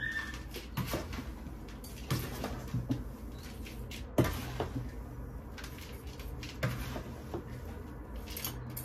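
Potting soil (a garden-soil, perlite and sand mix) being added to a plastic flower pot by hand, heard as soft rustles with a few light knocks and scrapes at irregular moments.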